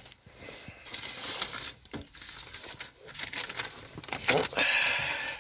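Paper rustling and crinkling as old receipts are handled and leafed through.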